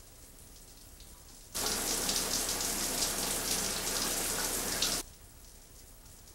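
Shower spray running: a steady rush of falling water that cuts in sharply about a second and a half in and stops abruptly about five seconds in. Before and after it there is only a faint steady hiss.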